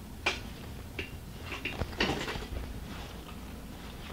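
A few light clicks and taps of objects being handled on a workbench, spread over the first couple of seconds.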